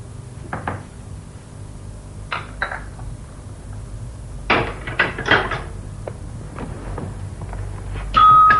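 Scattered clinks and knocks of crockery, cutlery and cupboard doors being handled, with a quick cluster of clatter about halfway through. Near the end a steady ringing tone starts suddenly.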